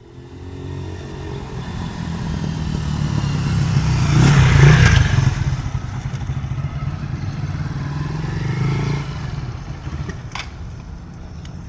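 Lifan KP Mini 150cc motorcycle engine running as the bike rides past, getting louder to a peak about four to five seconds in and then fading away. A sharp click about ten seconds in.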